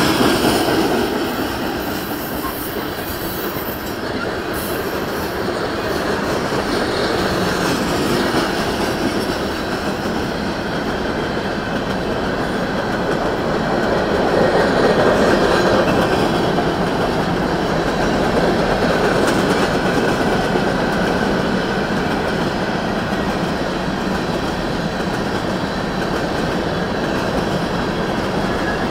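Freight train of oil tank cars and covered hopper cars rolling past close by, with steady wheel-on-rail noise and clatter. A faint wheel squeal comes and goes.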